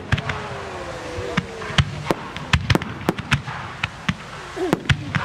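Fireworks display: aerial shells bursting overhead in a rapid, irregular string of sharp bangs, about fifteen in five seconds.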